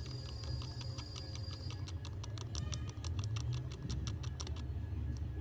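Fine needle scraping cured green solder mask off the pads of a phone board's LCD connector: rapid, irregular scratchy clicks at about six a second that stop about four and a half seconds in, over a steady low hum.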